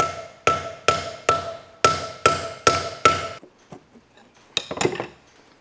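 Small hammer striking the steel reservoir can of a tractor power steering pump eight times, about two blows a second, each blow ringing with a clear metallic tone, to knock the can loose from the pump body. A few lighter metal clinks follow near the end as the can is worked free.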